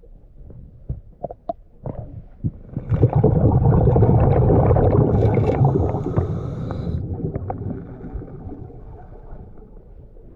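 Underwater sound of a scuba diver breathing on a regulator: small clicks and knocks, then exhaled bubbles rumbling loudly for about four seconds from about three seconds in, fading to a lower rumble.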